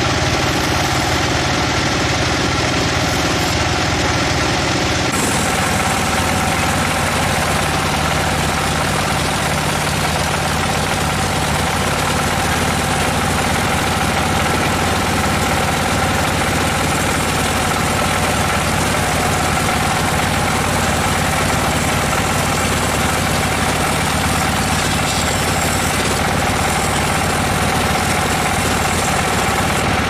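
Band sawmill running steadily while its blade saws through a log: a constant machine drone with a dense sawing hiss, which turns brighter and fuller about five seconds in.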